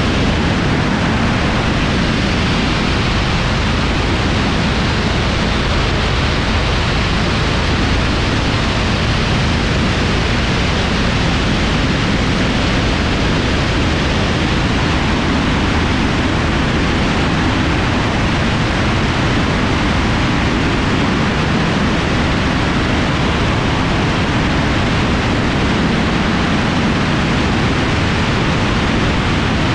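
Steady rush of wind over a camera mounted on the wing of an aircraft in flight, with the drone of the propeller engines low beneath it.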